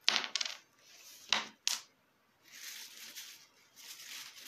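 Hands handling an oil feed pipe and its small metal banjo fittings: a few sharp clicks in the first two seconds, then rubbing and rustling.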